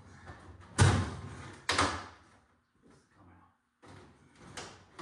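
Two loud clunks about a second apart, then softer knocks and rattles, as interior parts of a Mustang are worked loose and handled.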